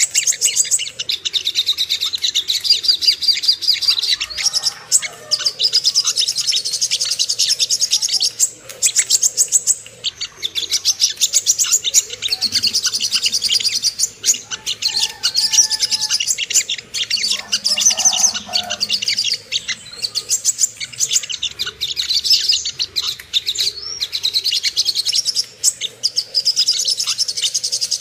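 Crimson sunbird (sogok ontong) singing: rapid, high-pitched twittering trills in phrases a second or two long, with short pauses between them.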